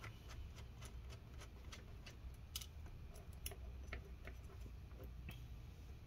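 Faint, irregular small clicks and ticks of a precision screwdriver backing small screws out of a laptop display hinge held in needle-nose pliers.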